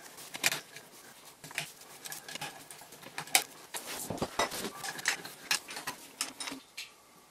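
Hand tools clicking and clinking on metal as a gloved hand works a nut and fittings on a 1946 Ford 2N tractor's starter motor: scattered sharp metallic clicks, several a second, dying away near the end.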